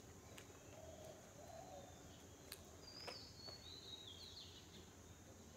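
Quiet outdoor ambience in which a bird sings a short run of high whistled notes, stepping down in pitch, about three seconds in. A faint, lower wavering call comes about a second in.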